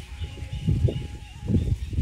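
Birds chirping faintly in the background, under loud, irregular low rumbling bumps, the strongest about a second apart.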